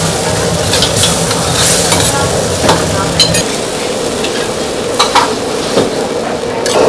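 Lamb fried noodles sizzling in a wok while a metal ladle stirs and scrapes through them, with scattered sharp clinks of metal on metal. A low rumble underneath stops about halfway through.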